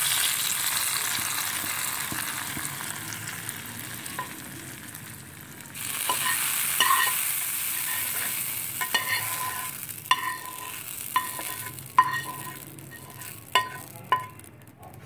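Hot tadka oil sizzling as it is poured onto boiled chana dal. The hiss fades, then surges again about six seconds in with a second pour. In the second half come several sharp metallic taps with a brief ring, as the last of the tadka is knocked out of the pan.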